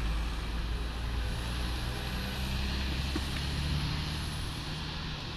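Low, steady engine rumble of road traffic. The deepest part of the rumble eases after about three seconds.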